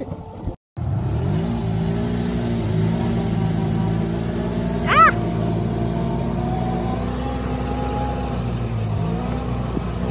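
Side-by-side UTV engine coming up in pitch about a second in, then running steadily under throttle. A brief high-pitched cry about halfway through is the loudest moment.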